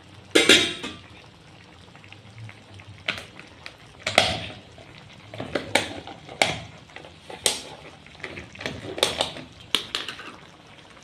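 Kitchen clatter of utensils against a cooking pot: irregular sharp clinks and knocks, the loudest about half a second in.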